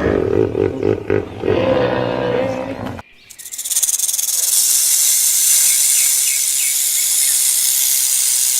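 Animal sound effects played back to back: a pitched, wavering animal call for about three seconds, which cuts off abruptly, then a steady high hissing buzz like an insect or a snake.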